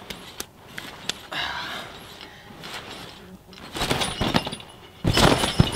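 A trampoline bed and its springs thumping and rattling under a jumper bouncing to build height, the bounces loudest near the end.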